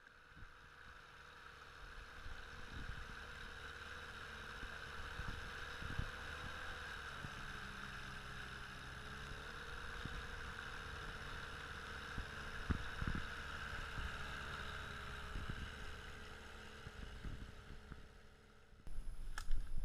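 Small boat's outboard motor running at a steady speed with a constant hum, over a steady rush of water and wind, with irregular low thumps of wind buffeting or the hull slapping the chop. About a second before the end it changes abruptly to a louder low rumble.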